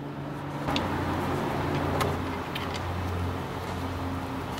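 Steady low rumble of a motor vehicle that swells about a second in and slowly eases off, with a few light metallic clicks from the scooter's drain bolt being threaded back in by hand.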